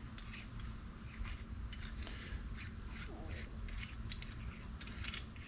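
Light, irregular clicks and scrapes of small hard parts being handled and turned by hand: a tweeter's screw-on outer ring and protective cover.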